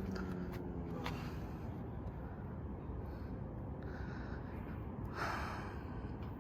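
A person breathing heavily, with a short sharp breath about five seconds in, over a steady low rumbling noise.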